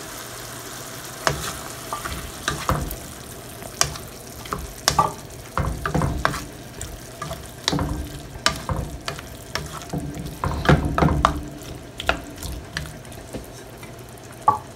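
A cooking utensil stirring bottle gourd and sardines in a hot frying pan: irregular clinks, knocks and scrapes against the pan over a steady low sizzle.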